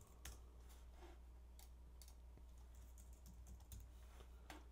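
Faint typing on a computer keyboard: a handful of irregular keystrokes over a steady low hum.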